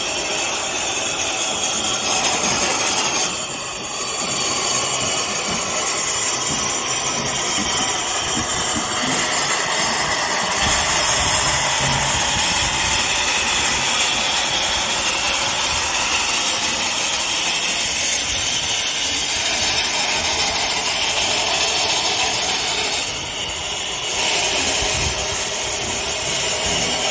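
Steady hiss of steam from an FS Gruppo 740 steam locomotive standing in steam on a turntable. A deeper rumble joins about ten seconds in.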